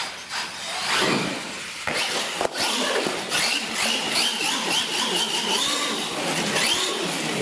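Electric motor of an RC monster truck whining as the throttle is blipped, the pitch rising and falling and then held steady, with a sharp knock about two and a half seconds in and the clatter of the truck tumbling over on concrete.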